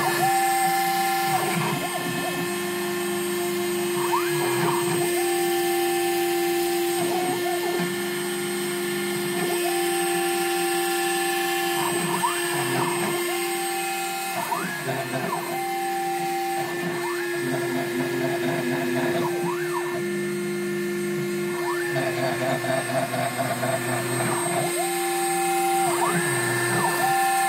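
Dremel rotary tool running at a steady whine as the spindle of a DIY Solsylva CNC router cutting insulation foam. Over it, the stepper motors hum in pitch with each axis move, rising, holding and falling every couple of seconds. The builder notes an audible wobble on straight X-axis moves, from acme lead screws that are not quite true.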